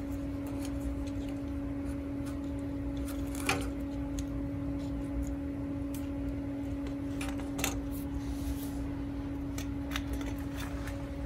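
Hands handling electrical wires and plastic wire nuts while splicing photocell leads, giving scattered small clicks and rustles, a couple of them sharper. A steady hum runs underneath.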